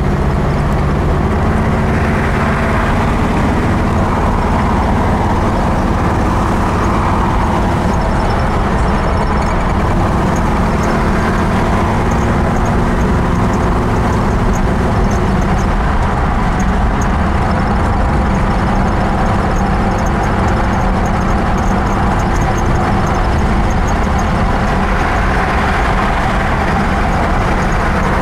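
Inside the cabin of a 1957 Buick Estate Wagon Caballero cruising at freeway speed, its V8 and automatic transmission running steadily under tyre and road noise.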